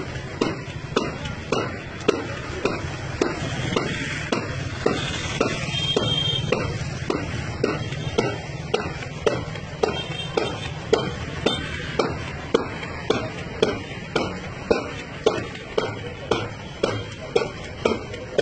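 A steady percussive beat, about two sharp strikes a second, over a low steady hum.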